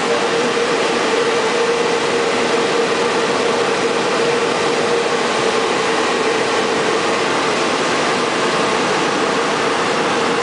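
RCA H-set vacuum-tube shortwave transmitter powered up and running: a steady rush of air from its cooling blowers with a steady mid-pitched hum underneath.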